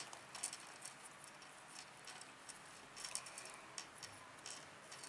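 Faint, irregular small clicks and taps from hands trimming excess Play-Doh off the rim of a plastic toy pie dish, fingers and the dish knocking lightly as the scraps are pulled away.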